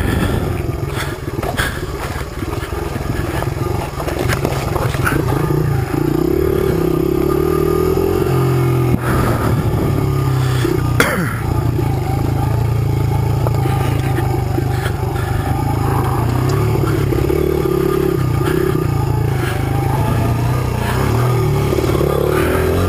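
Small single-cylinder four-stroke dirt bike engine, a 2005 Honda CRF100, running at low, changing throttle over rough rocky ground, with clicks and clatter of stones and the bike over the bumps. A sharper knock comes about eleven seconds in.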